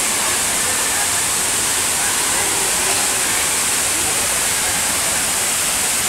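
Waterfall's steady rush of falling water, with a crowd of people chattering faintly underneath.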